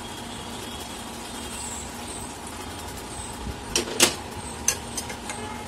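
A steady hiss with a faint hum, and about four seconds in a few sharp clinks of a metal slotted spatula knocking against a metal kadhai.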